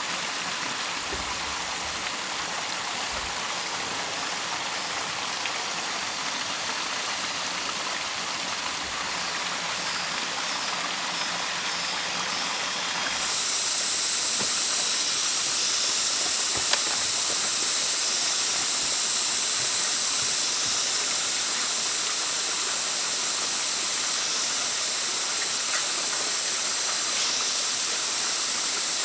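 A steady hissing noise. About halfway through, a louder high-pitched hiss sets in and holds, dipping briefly a few times.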